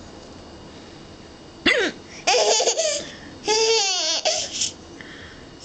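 A man's single hiccup, a short sharp gulp about a second and a half in, answered by a baby's high-pitched laughter in three or four bursts, one of them wavering up and down.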